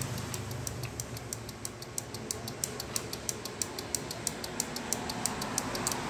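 Bike horn 'melody maker' relay module clicking rapidly and evenly, several clicks a second, as it switches a 12 V pixel LED string on and off in its chaser pattern.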